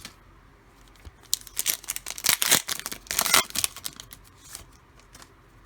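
A foil pack of Panini Mosaic football cards being torn open and its wrapper crinkled: a stretch of loud crackling and tearing starting about a second and a half in and lasting a couple of seconds, then a few softer rustles.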